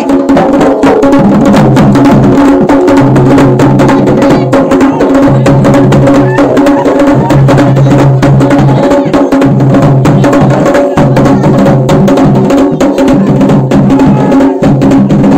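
Pahadi folk drumming: dhol drums beaten in a fast, unbroken rhythm, with a droning, stepping melody held over the beat.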